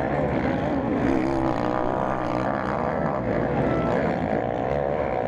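MX1-class motocross bikes' engines revving hard as the bikes climb a steep dirt hill and take off over its crest, the pitch rising and falling as the riders work the throttle. Several bikes' engines overlap.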